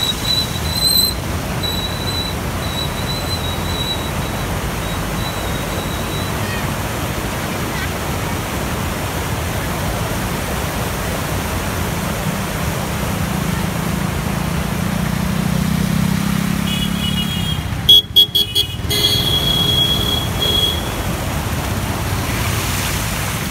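Steady rush of floodwater pouring across a road, with motorcycles riding through it. About eighteen seconds in, a vehicle horn gives several quick toots and then a longer honk.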